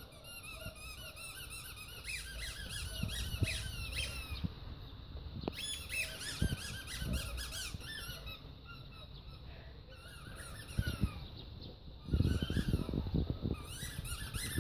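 Rubber squeaky dog toy squeaking over and over in quick runs as a Staffordshire bull terrier puppy chews it, with short pauses between runs. A louder low rumble comes in near the end.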